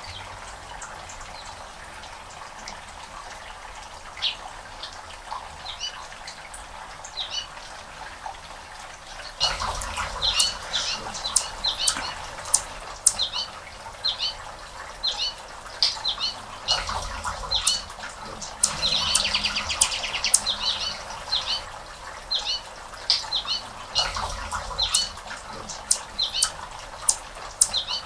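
Anna's hummingbird giving repeated sharp, high chip notes, sparse at first and then coming several a second, with a brief buzzy rattle of notes about two thirds of the way through. A low rushing noise swells and fades a few times underneath.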